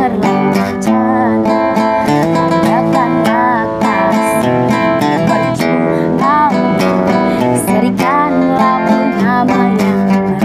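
A woman singing a Malay pop ballad, accompanied by a strummed acoustic guitar, with the vocal melody carried over a steady strummed rhythm.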